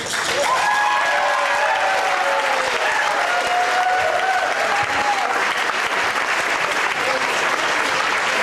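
Audience applauding at the end of a tune, with voices calling out over the clapping during the first few seconds.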